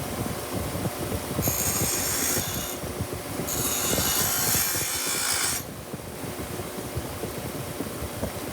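A power grinder running while a steel bolt is pressed against it twice, grinding a flat screwdriver tip. Each contact gives a harsh, high grinding hiss: the first lasts about a second, starting about a second and a half in; the second lasts about two seconds.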